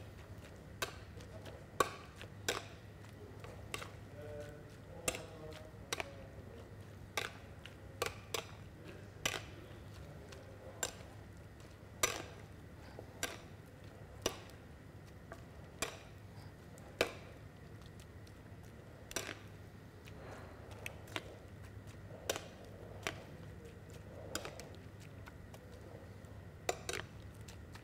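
A metal serving spoon clinking against a ceramic bowl as chopped fruit dressed in mayonnaise is tossed and stirred. The sharp knocks come irregularly, roughly once a second, over a low steady hum.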